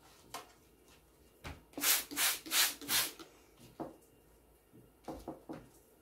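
Hand-held trigger spray bottle spritzing the paper and lace in the baking tray: four quick hissing sprays in a row about two seconds in, with a few light handling knocks before and after.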